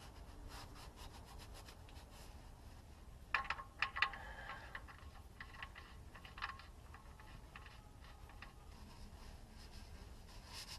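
Quiet rubbing and scraping of hands and tools working under a car around the oil drain plug and filter mount. There is a quick cluster of light clicks and clinks about a third of the way in, and another click a little later.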